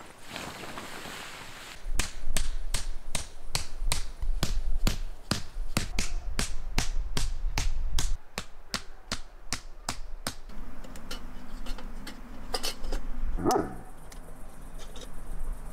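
A tent stake being hammered into the ground with quick, even blows, about three a second, for several seconds. Near the end a dog whimpers once.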